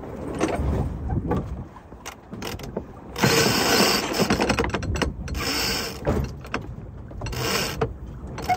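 A rope being hauled hand over hand on a sailboat, the line rasping through its blocks in several long pulls, the loudest starting about three seconds in.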